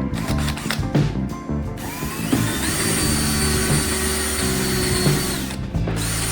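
Electric drill spinning up about two seconds in, running steadily for about three seconds, then winding down, over background music.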